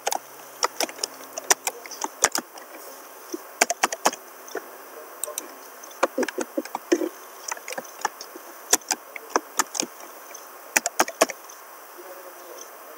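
Computer keyboard keys clicking as a password is typed, twice over, in irregular bursts of sharp clicks. The typing stops near the end, over a steady faint hiss.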